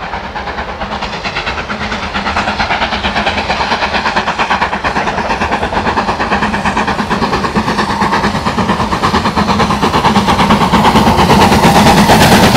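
BR Standard Class 4 2-6-4 tank locomotive No.80136 steaming toward the listener, its two-cylinder exhaust beat a fast, even chuffing that grows steadily louder as it comes closer.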